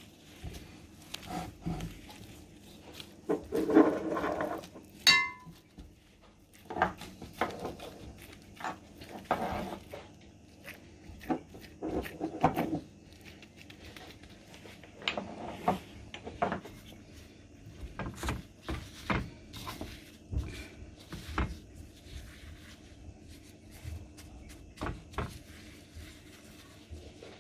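Oiled hands squishing and patting minced chicken mixture into small pieces, in short irregular bursts, with light knocks against a dish and one brief ringing clink about five seconds in.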